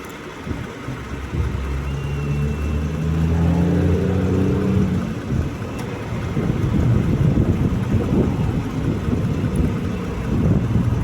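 Jeep Grand Cherokee engine running, a steady low hum whose pitch rises for a few seconds, then a rougher, noisier low rumble through the second half, while the air-conditioning compressor cycles on and off.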